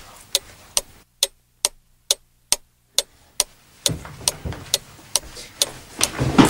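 Clock ticking steadily, about two and a half ticks a second, over faint room noise.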